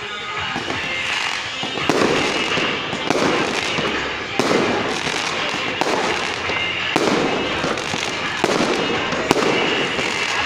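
Aerial fireworks going off in a steady series, about eight bangs roughly one every second and a quarter, each fading out before the next.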